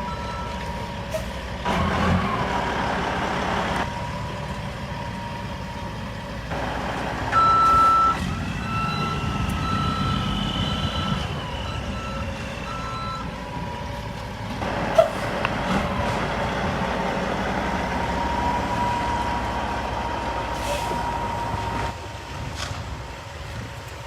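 Heavy construction equipment's diesel engine running under load, with a reversing alarm beeping on and off and a whine that rises and falls in the middle. A single sharp clank about two-thirds of the way through.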